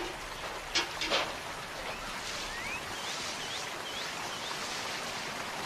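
Bald eagle giving a string of about five short, high chirps, the first a longer rising note, over a steady outdoor hiss. Two short clicks come about a second in.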